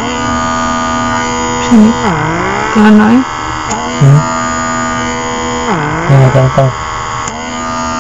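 Small electric pump motor of a handheld blackhead vacuum suction device running on its level 1 setting with a steady hum. Its pitch dips and recovers twice, and a few short louder bursts come between about two and seven seconds in.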